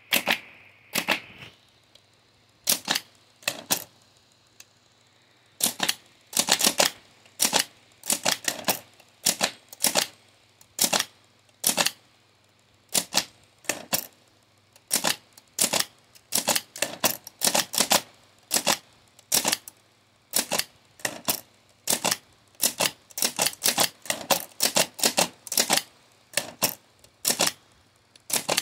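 Hammond Multiplex typewriter being typed one key at a time, each keystroke a sharp clack of the hammer driving the paper against the type shuttle. The strokes come haltingly at first, with a pause of about two seconds early on, then settle into an uneven run of about two or three a second.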